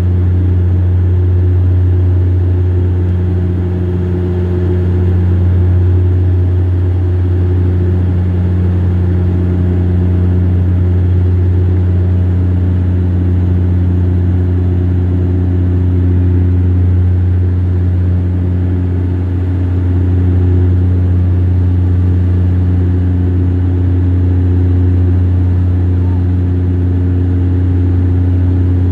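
Bombardier DHC-8 Q400 turboprop's six-bladed propellers droning in the cabin during the climb after takeoff: a loud, steady deep hum with a few fainter higher tones above it, swelling slightly now and then.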